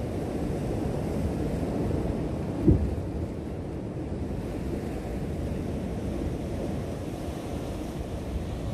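Sea waves washing against the rocks, mixed with wind buffeting the microphone, a steady low rumble. A short, low thump about two and a half seconds in is the loudest moment.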